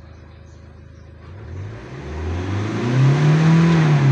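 2016 Hyundai Accent CRDi common-rail diesel engine idling, then revved up freely and held high before starting to ease off, a rev test with a substitute mass airflow sensor fitted; the owner takes the free revving as proof that the car's own mass airflow sensor is what causes its low-power fault.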